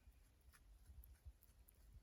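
Near silence with a few faint, soft clicks: a rock hyrax chewing on a flower bud.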